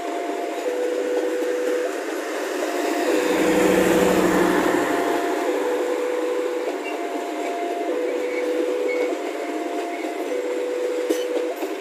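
Railway level-crossing alarm sounding a two-tone high-low signal, each tone held about a second, while KAI economy passenger coaches of the Bengawan train run past with a steady rolling rumble of wheels on rail. A deeper rumble swells about three seconds in and fades by five.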